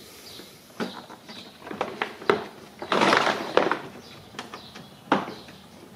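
Plastic clips snapping and hard plastic knocking as a 2009 Lincoln MKX's chrome grille is pried loose from its plastic grille assembly by hand: a few sharp clicks, with a rasping plastic scrape about three seconds in.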